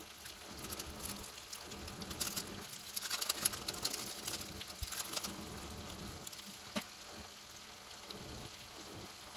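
Faint crackling sizzle of spaghetti in a hot pan, with soft pattering as grated cheese is sprinkled onto it, densest a few seconds in. A couple of light clicks stand out later on.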